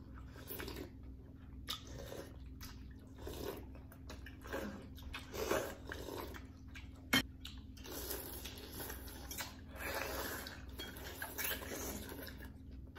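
People slurping rice noodles and broth from bún bò Huế and chewing, in short irregular spells, with one sharp click about seven seconds in.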